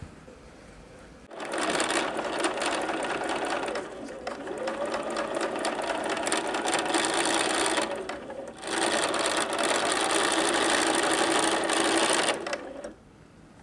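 Bernina sewing machine stitching a seam through quilting cotton. It starts about a second in, pauses briefly, runs again and stops about a second before the end.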